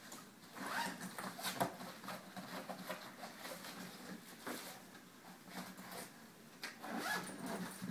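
Zipper on a soft-sided cabin-size spinner suitcase being pulled along in several short strokes.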